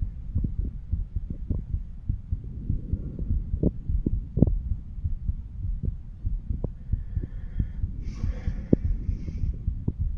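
A man's heartbeat heard through a stethoscope on his chest during auscultation: a steady run of low heart-sound thumps over a constant low rumble.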